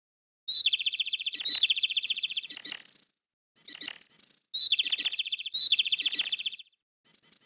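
Nokia 7600 ringtone playing a bird-like tone: a high, fast trill followed by quick chirps, the phrase repeating about every four seconds with short gaps between. It starts about half a second in.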